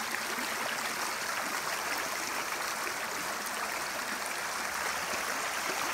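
Shallow creek water running steadily over a gravel bed, a continuous even rush with no single splashes standing out.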